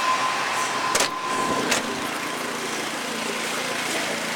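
Snow blower engine running steadily, its even hum becoming plainer about halfway through, with two sharp knocks in the first two seconds.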